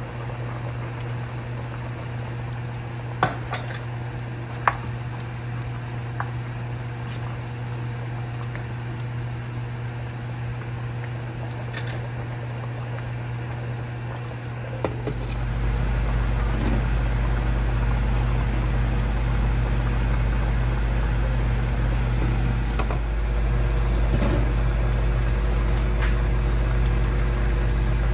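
A steady low mechanical hum over a simmering pot of broth, with a couple of sharp clinks a few seconds in. About halfway through, a deeper rumble joins and the sound gets louder.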